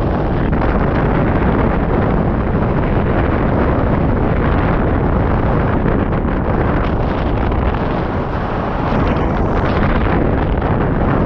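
Loud, steady rush of wind buffeting the microphone of a camera mounted on a hang glider in flight, easing slightly about eight seconds in.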